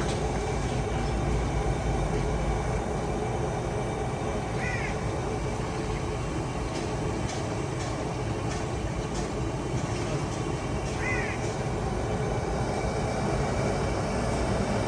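Steady street background rumble, with a crow cawing twice, about a third of the way in and again near three-quarters through.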